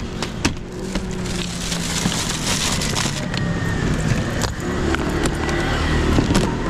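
Clicks and knocks of a folding plastic delivery box's lid being opened and shut, over a steady street traffic noise.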